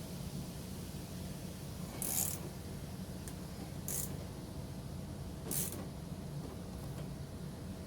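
Ratchet wrench clicking in three short bursts, about two seconds apart, as a 10 mm bolt holding a truck headlight is loosened.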